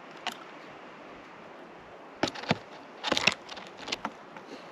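Scattered sharp clicks and knocks, several in a quick cluster about three seconds in, over a steady background hiss.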